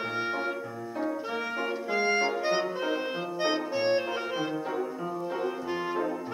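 Clarinet playing a lively melody of quick changing notes, accompanied by an upright piano.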